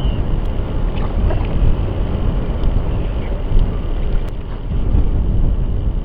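Strong typhoon wind buffeting the microphone: a loud, gusty low rumble that rises and falls unevenly.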